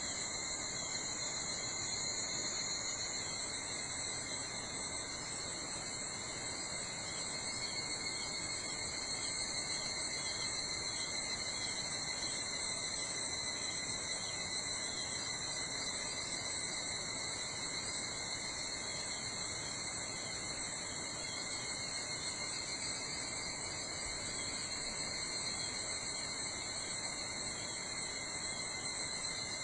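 Chorus of summer forest insects trilling steadily at several different pitches, layered into a continuous high-pitched drone; the highest voice shifts slightly in pitch about three seconds in.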